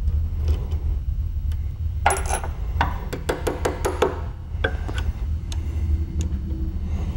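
A quick run of light metallic clicks and clinks, starting about two seconds in and lasting about two seconds, as steel parts and a thin steel rod are worked against a sidelock shotgun action. A steady low hum runs underneath.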